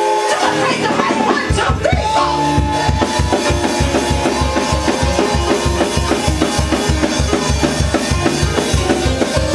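Live church band music: held keyboard chords, joined about a second and a half in by a fast, even drumbeat of roughly four bass-drum hits a second.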